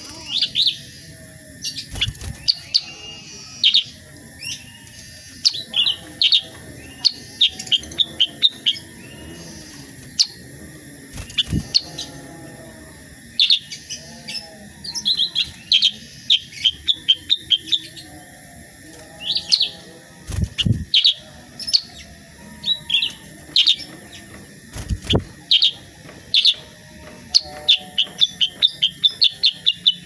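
Black-headed bulbul (kutilang sutra) singing: loud, repeated bursts of short, sharp chirping notes with brief gaps between them, quickening into a rapid run near the end.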